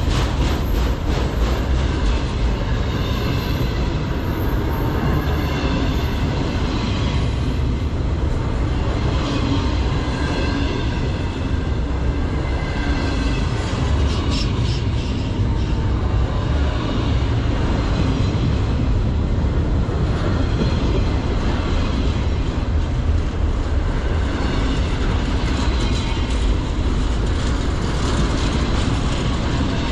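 Freight train autorack cars rolling past right beside the track: a steady rumble and clatter of steel wheels on rail, with high wheel squeal tones coming and going.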